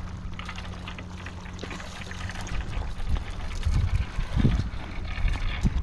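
Seawater lapping and sloshing against a concrete breakwater, with a low gusty rumble growing louder in the second half.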